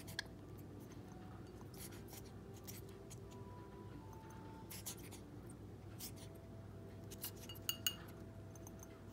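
Cockatiel pecking at sweet potato in a glass bowl: scattered light clicks and taps of its beak against the glass and food, with a quick cluster of taps near the end.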